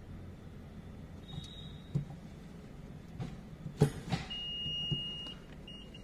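A Renault Kiger is shifted into reverse, with a few sharp clicks and knocks from the gear lever and cabin. Then its reverse warning sounds: a steady electronic tone lasting about a second, followed near the end by rapid high beeping, about four or five beeps a second, from the reverse parking alert.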